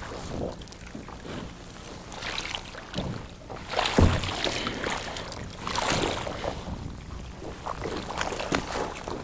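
Sounds of a small fishing boat on the water: wind on the microphone with irregular knocks and rustles of handling in the boat, the loudest a single thump about four seconds in.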